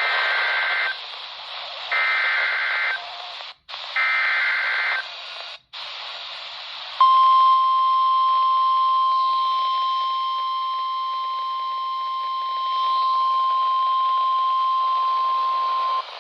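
NOAA Weather Radio emergency alert heard through a weather radio's speaker with static hiss. There are three bursts of about a second each of the buzzing SAME digital header. About two seconds later comes the steady 1050 Hz warning alarm tone, held for about nine seconds, which signals that a warning, here a severe thunderstorm warning, follows.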